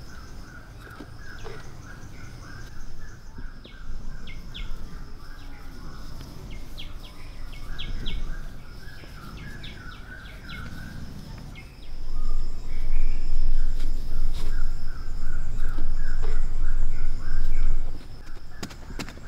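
Outdoor woodland ambience: birds chirping and insects buzzing steadily over a continuous low rumble. A much louder stretch of noise lasts several seconds in the second half.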